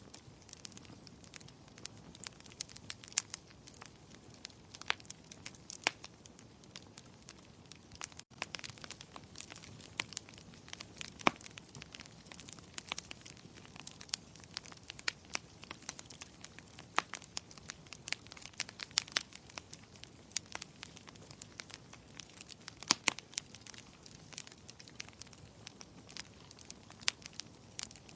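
Fire crackling in a fireplace: a steady low hiss with frequent, irregular sharp pops and snaps, a few of them louder, the loudest about four-fifths of the way through. The sound drops out for an instant about eight seconds in.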